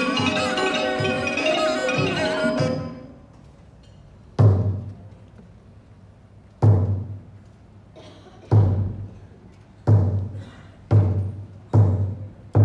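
A Thai piphat ensemble, led by ranat ek boat-shaped xylophones, plays and stops about three seconds in. Single deep drum strokes follow, each ringing and dying away, coming closer together: about two seconds apart at first, under a second apart by the end.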